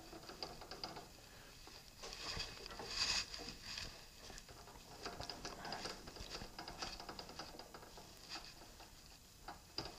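Faint, scattered clicking and rattling of metal lathe parts as the cutting tool is backed away from the work, with a louder cluster of clicks about three seconds in.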